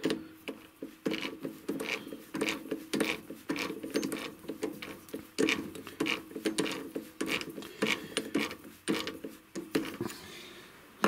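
A TV-16 lathe chuck being wound shut with a chuck key: a long run of irregular metallic clicks and rattles, about two or three a second, from the scroll and jaws, easing off near the end and followed by a sharper clack.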